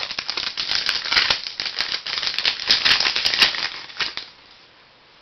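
2005 Donruss Diamond Kings baseball cards being handled and flipped through from a freshly opened pack: dense, rapid crackling and rustling that stops about four seconds in.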